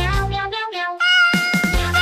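A kitten meowing over background music with a repeating bass line; the bass drops out for about a second in the middle.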